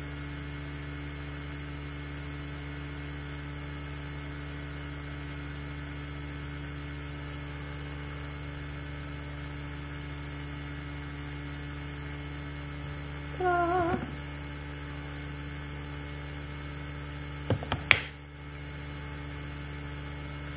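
Steady low electrical hum of a running electric fan. About two-thirds through there is a brief wavering pitched sound, and near the end a few sharp clicks, the last one the loudest.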